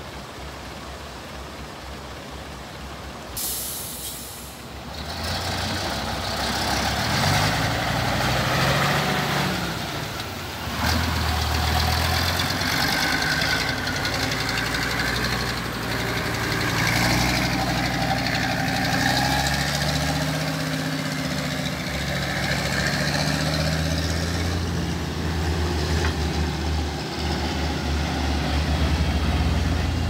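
Logging truck engine revving and labouring through a fast, shallow river ford, its pitch rising and falling repeatedly, over rushing water. The water is heard alone for the first few seconds, and a short sharp hiss comes about three seconds in, just before the engine builds.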